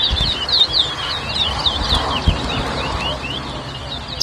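A caged towa-towa (chestnut-bellied seed finch) singing a fast run of short, sweeping whistled notes that thins out after about three seconds, then stops with a sharp click. This is the competition song that judges count.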